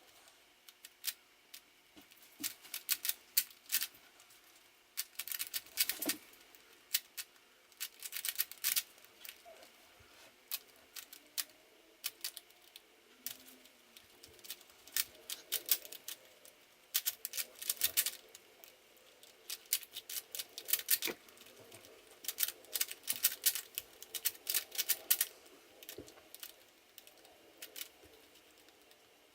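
A plastic 3x3 Rubik's Cube clicking as its layers are turned by hand, in quick flurries of clicks with short pauses between them.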